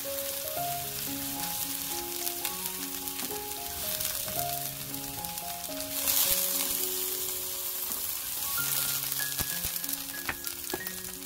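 Oil sizzling in a frying pan as king oyster mushroom slices grill in olive oil, louder about six seconds in. Background music with a simple melody plays over it.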